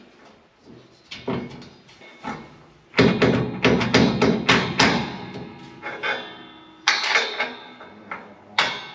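Metal tools knocking and clanking on the combine's concave bolts and bushings as they are worked loose. A few single knocks, then a dense run of sharp ringing strikes about three seconds in, and another short run near the end.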